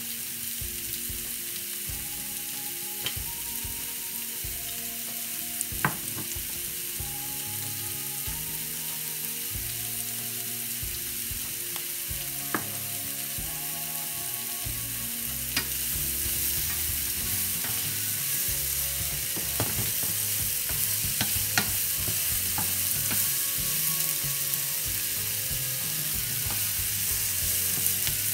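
Sliced mushrooms, bell peppers and onion sizzling steadily in a frying pan, growing a little louder about halfway through, with a few sharp clicks.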